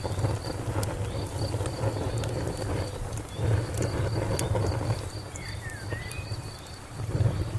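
Fire crackling, with scattered sharp pops over a low rumble, while crickets chirp steadily in a fast pulsing rhythm; a short bird call glides in about five and a half seconds in.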